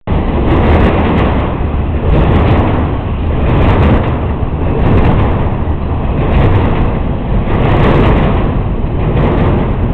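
Intermodal freight train cars, trailers on flatcars and stacked containers, rolling past close by: a loud, steady rumble of steel wheels on rail with a clatter that swells and eases about every second as each car's trucks go by.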